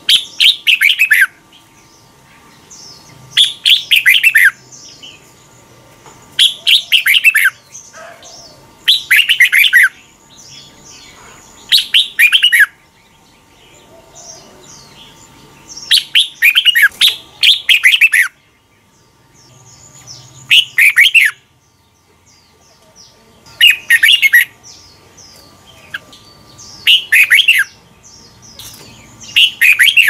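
Red-whiskered bulbul singing: about ten loud, quick warbled phrases, each roughly a second long, coming every three seconds or so, with fainter high chirps between them.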